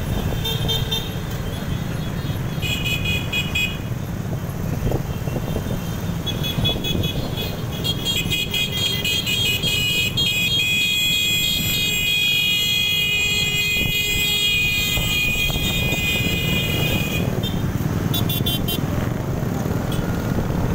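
Motorcycle ride in group traffic: a steady low engine and wind rumble, with vehicle horns honking over it. The horns give short repeated beeps in the first few seconds, then sound almost without a break for several seconds in the middle, with one more short burst near the end.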